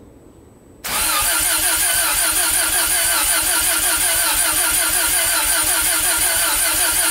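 Starter cranking a freshly rebuilt bridgeported Mazda 13B-REW rotary engine on a cold first start. It begins about a second in and turns over steadily with an even pulsing, without the engine catching. The owner suspects the engine is flooded.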